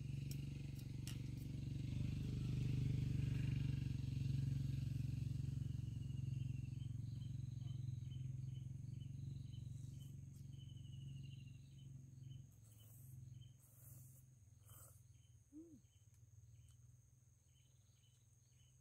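Outdoor ambience: a steady low rumble that fades after about twelve seconds, with a regular series of short, high animal chirps, two or three a second, through the middle stretch.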